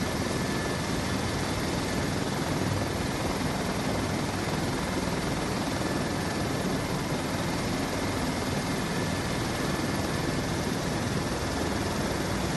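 Helicopter running nearby on the ground: a steady, loud engine and rotor noise with a thin, constant high whine.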